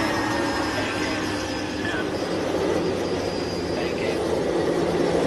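Airliner jet engines running with a steady rushing noise and a thin high whine over it. The level holds even, with no impact heard.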